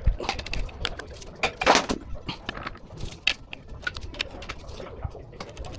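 Metal hand tools and engine parts clinking and clattering as they are handled during an engine teardown, in a string of short sharp knocks, with a longer, louder noise about a second and a half in.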